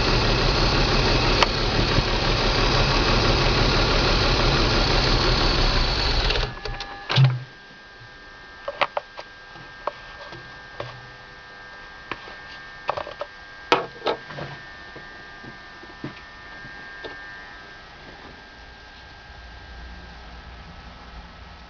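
BMW M54 inline-six engine running steadily, then shut off abruptly about six seconds in. Scattered clicks and a faint steady hum follow.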